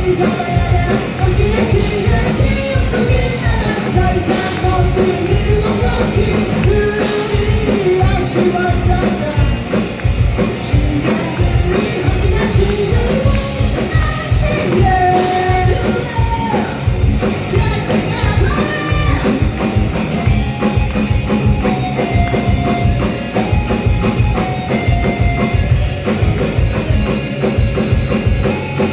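Live rock band playing loudly: a drum kit pounding out a fast beat under guitars and bass, with a sung vocal line gliding over it for much of the time.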